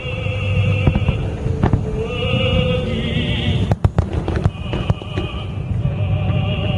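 Fireworks show: several sharp bangs from bursting shells, two in quick succession near the middle, over a steady low rumble. Music plays through loudspeakers at the same time, with a high wavering melody line.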